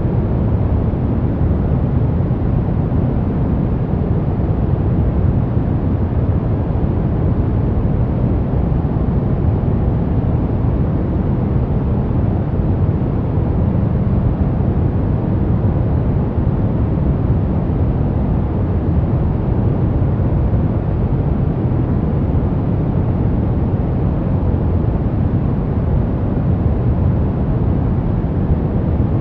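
Continuous white-noise track: an even, unchanging hiss-like rush with most of its weight in the low end and little treble, so it sounds deep and muffled.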